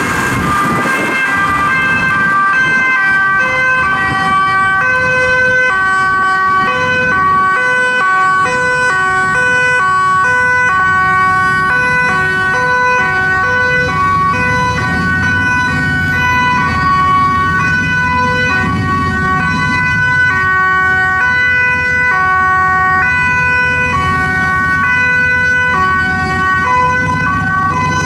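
Two-tone sirens of several Dutch police cars sounding at once, stepping between high and low notes without pause, over the rumble of road traffic.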